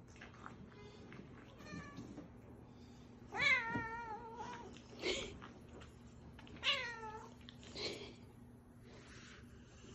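Cat meowing several times: two longer calls with a wavering pitch, each about a second long, and shorter calls between and after them.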